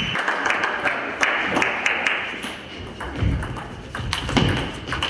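Table tennis ball struck by rackets and bouncing on the table during a rally: a run of sharp, irregular clicks.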